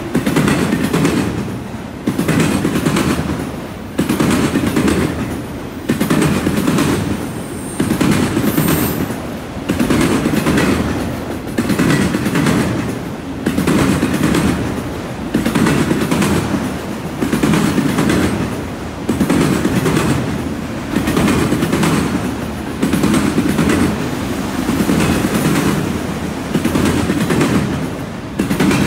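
Autorack freight cars rolling by, their steel wheels clattering over the junction switch, with a burst of clatter about every two seconds over a steady rumble.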